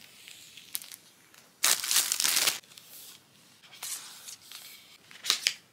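Clear plastic wrap being peeled and torn off an Apple Watch box, crinkling. One long tear about two seconds in is the loudest, lasting about a second, with shorter rustles before and after it.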